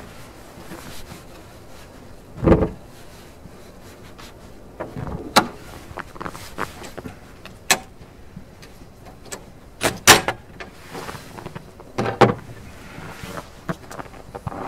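The bonnet of a Nissan Patrol Y60 being unlatched, raised and propped open: a dull thud about two and a half seconds in, then a series of sharp metal clicks and knocks, the loudest about ten seconds in. The engine is not running.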